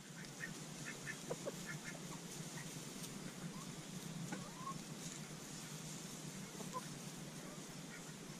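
Backyard hens clucking softly in short, scattered calls while they forage in straw.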